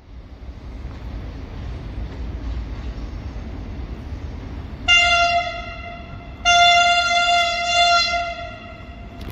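Frecciarossa 1000 high-speed train sounding its horn twice as it approaches: a short blast about five seconds in, then a longer one of about two and a half seconds. Under it runs the low rumble of the moving train.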